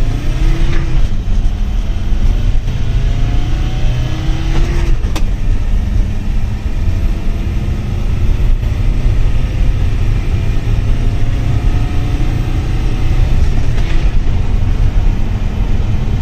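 Mercedes Sprinter's 2.9-litre five-cylinder turbodiesel under full acceleration, its pitch rising and then dropping back at each of several gear changes. The run is timed before the engine control unit is reflashed.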